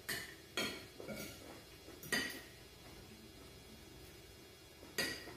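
Metal spoons and forks clinking against ceramic dinner plates while eating, about five sharp clinks: three in the first second or so, one at about two seconds, and one near the end, with a lull between.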